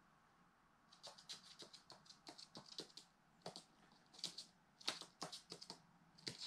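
A magpie's claws clicking and tapping on a hard laminate floor as it walks and hops about: quick, irregular runs of light ticks starting about a second in.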